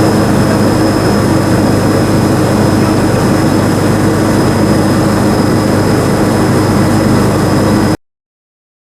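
The 5-cylinder, 170 hp diesel engine of an SS-300 Black Bird rice combine harvester running steadily under load, with a constant high whine over the engine's drone. The sound cuts off abruptly near the end.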